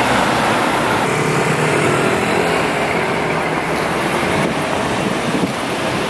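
Road traffic: cars driving past close by, a steady mix of tyre and engine noise.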